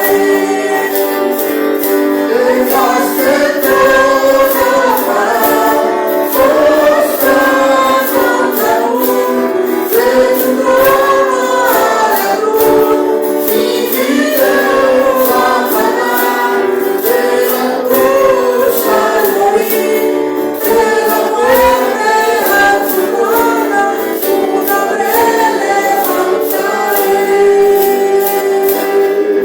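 Church congregation singing a worship hymn together, with instrumental accompaniment and a steady percussive beat.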